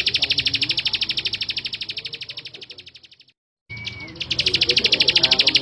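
Male plain prinia singing its song: a very fast, even, buzzy trill of about a dozen notes a second. The trill fades out about three seconds in, breaks off, and starts again louder about a second later.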